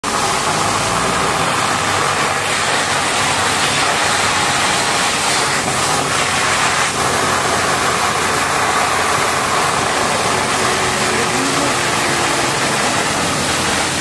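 High-pressure water jet from a wash-bay cannon hissing and spattering steadily against the bucket and tyres of a Caterpillar 992K wheel loader, with the loader's diesel engine idling underneath.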